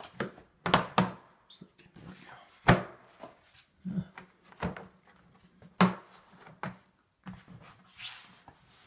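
Hard plastic knocks and clicks as a Litter-Robot Open Air's bonnet is pressed and worked onto the globe to seat its tabs in their holes. Several separate sharp knocks, the loudest about three seconds in and again near six seconds.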